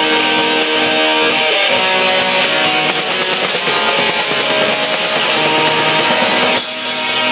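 Small rock band playing live: strummed electric guitar over a drum kit with ringing cymbals.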